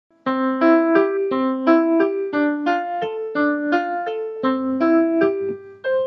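Short instrumental intro jingle: quick, bouncy notes in a repeating pattern, about three a second, ending on one held note near the end.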